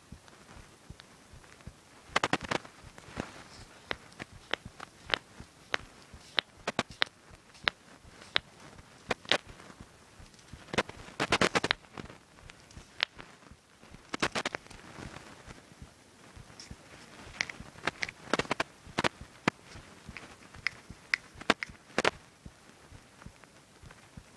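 Knuckles cracking: a long run of sharp pops at irregular intervals, some coming in quick clusters of several.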